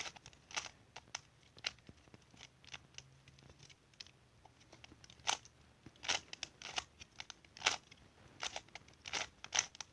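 A 2×2 Rubik's cube being turned by hand over and over, its plastic layers clicking in a run of sharp, irregular clicks, some in quick clusters.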